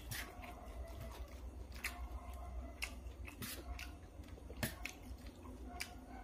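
A person eating: chewing, with irregular sharp clicks of a spoon against a metal serving tray over a steady low hum.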